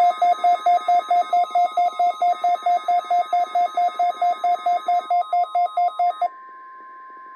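NOAA Weather Radio warning-alarm test: the steady 1050 Hz alert tone sounds under a rapid pulsing alarm beep from a weather radio receiver, about five beeps a second. About six seconds in the beeping stops, and a second, higher steady tone carries on beside the alert tone.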